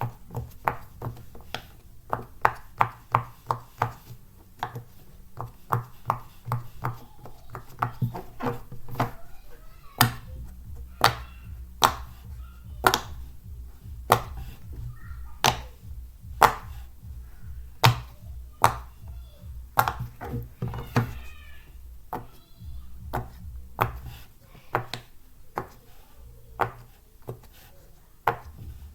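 Silicone pop-it fidget toy bubbles being pressed: a long run of sharp pops, several a second in quick runs during the first few seconds, then more spaced single pops about a second apart.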